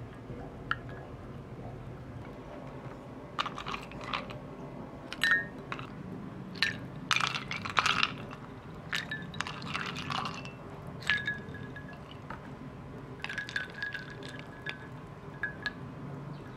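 A wooden spoon and ice cubes clinking and knocking against a glass mug of iced coffee, in irregular clusters, several strikes leaving a brief glassy ring.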